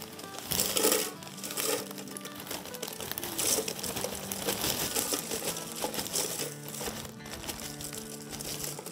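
Wavy potato chips poured from a crinkly chip bag into a clear plastic jar: the bag crinkles and the chips rustle and clatter against the plastic in uneven bursts.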